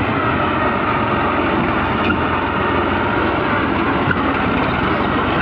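Tractor engine running steadily on the move, heard from on board as a loud, even rumble and rush.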